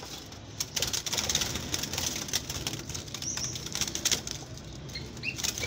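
Doves fluttering and flapping their wings inside a wire cage as a hand reaches into their nest bowl, with irregular rustling and light rattling of the cage.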